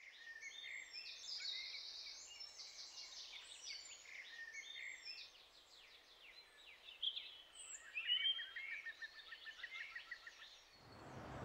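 Several songbirds singing at once: overlapping chirps, quick whistled sweeps and a rapid trill. Near the end the birdsong gives way to a steady hiss.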